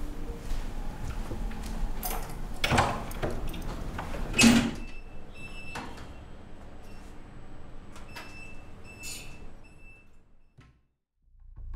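A wooden front door being opened and shut, with knocks about two to three seconds in and a loud thud about four and a half seconds in. About nine seconds in, a lift's metal doors slide.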